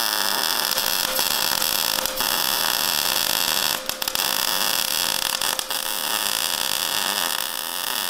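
MIG welding arc from a Prime Weld MIG180 running steadily as a bead is laid on a mini bike's engine plate, with two brief breaks in the middle.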